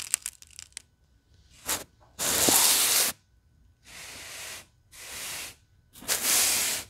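Kinetic sand crumbling and tearing as handfuls are pulled apart: a few crackles at first, then five separate hissing crunches, the longest and loudest about two seconds in.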